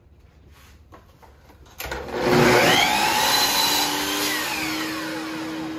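Festool Kapex miter saw starting up about two seconds in and its blade cutting through a length of crown molding. The motor's pitch then falls as the saw winds down, getting steadily quieter.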